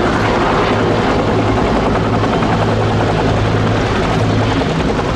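Several AH-1S Cobra attack helicopters hovering and flying low: a loud, steady drone of two-bladed main rotors and turboshaft engines.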